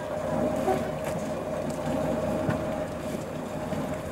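Engine of an eight-wheel-drive trial truck running under load as it crawls over rocks, a steady rumble with a steady whine over it and a few short knocks.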